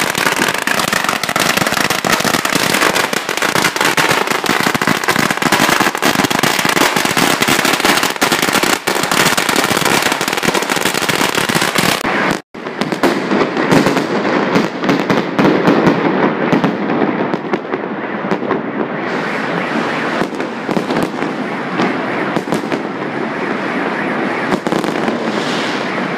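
A long string of firecrackers going off in a rapid, unbroken crackle for about twelve seconds. After a sudden cut, aerial fireworks bursting overhead over a dense, duller din of many fireworks and firecrackers, with scattered louder bangs.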